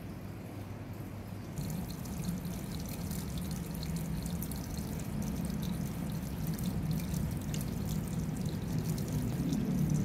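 Water trickling and splashing in a fish pond that is being drained, starting about a second and a half in, over a low steady hum.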